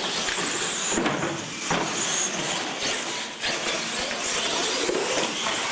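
Radio-controlled monster trucks racing side by side down a concrete floor: a loud, steady rush of motors and tyres that starts suddenly as they launch, with a few sharp knocks as they hit the ramps.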